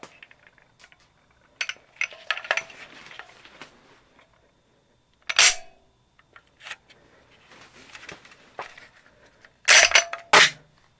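H&K USP40 pistol being worked to eject a dummy round: sharp metallic clacks of the slide and action with short rattles between them. The clicks come in a cluster about two seconds in, then one loud clack in the middle, then two loud clacks close together near the end.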